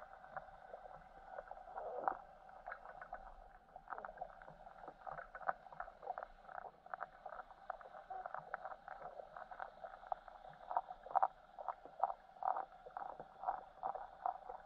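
Underwater ambience picked up by a submerged camera: a steady hum with irregular crackling clicks, several a second, growing busier in the second half.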